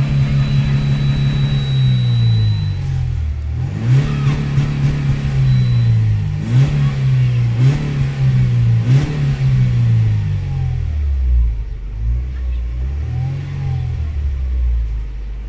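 Mercedes-Benz W202's engine, heard from inside the cabin, revved up and down several times, then settling back to idle near the end. A thin, steady high whistle sounds over it in the first couple of seconds and again briefly mid-way; it is the cabin whistle that the owner traces to somewhere around the glovebox.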